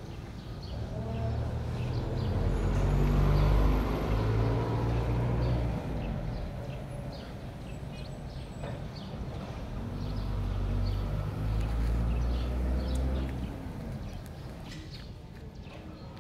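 A motor vehicle engine passing by twice: a low engine note builds to a peak and fades over a few seconds, then does the same again.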